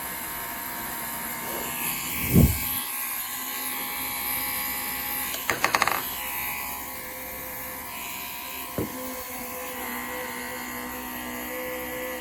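Small portable airbrush compressor running steadily with a hiss of air. There is a heavy thump about two seconds in, a quick run of clicks around the middle and one more click near the end.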